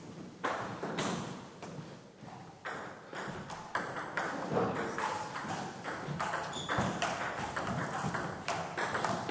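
Table tennis rally: the ball clicking back and forth off the table and the players' bats, in a quick, irregular series of sharp ticks starting about half a second in.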